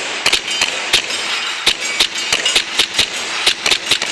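Gas blowback airsoft pistols firing rapidly, about four or five sharp cracks a second at uneven spacing, over a steady hiss.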